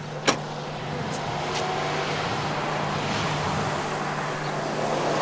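A car trunk lid slammed shut once, a single sharp thud, followed by a steady rush of road traffic noise that slowly grows louder.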